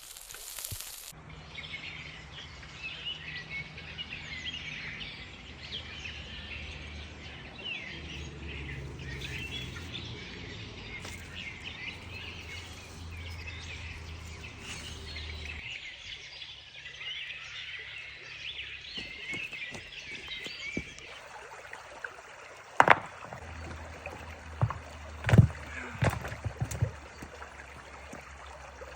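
Many small birds chirping and singing over a low steady rumble. In the last several seconds a few sharp knocks sound, the loudest about 23 and 25 seconds in.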